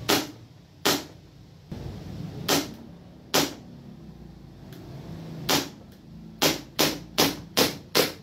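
WE Hi-Capa 3.8 gas blowback airsoft pistol firing about ten shots, each a sharp pop with the slide's blowback. The first shots come singly a second or more apart, and a quick string of five follows near the end. It wears a mock silencer that the owner says does not lower the noise because of the blowback.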